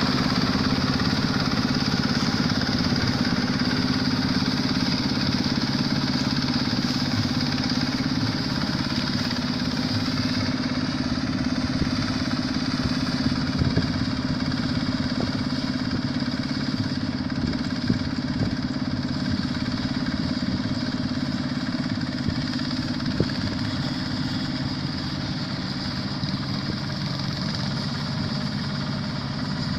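Quick H-140R combine harvester's Kubota diesel engine running steadily, with a few faint knocks, fading slightly near the end.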